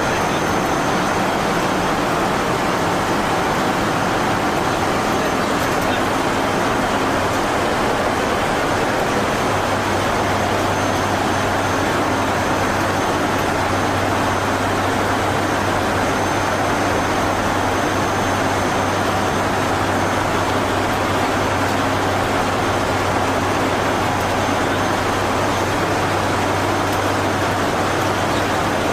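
Airbus A400M Atlas's four turboprop engines running at a steady, even drone, with a low hum that comes in about a third of the way through.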